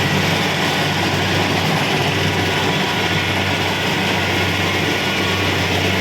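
Kubota DC-70 Pro combine harvester running steadily while working: a constant low engine drone under a dense, even mechanical noise, with no change in pitch or loudness.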